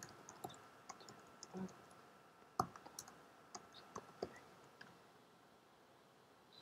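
Faint, scattered keystrokes and clicks on a computer keyboard, about a dozen separate taps, stopping about five seconds in.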